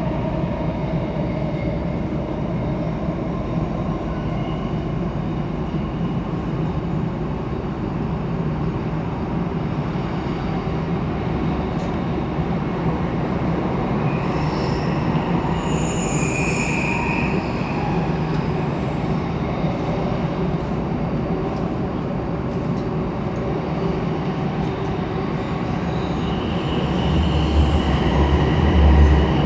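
Interior running noise of a Bombardier C951 metro train moving through a tunnel: a steady rumble of wheels on rail. High-pitched wheel squeals come in around the middle, and a deeper low rumble swells near the end.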